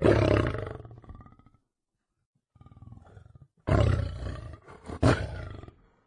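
Lion roaring. A loud roar comes right at the start and fades over about a second and a half. Softer grunts follow, then a second loud roar about halfway through, with a further loud burst about a second later.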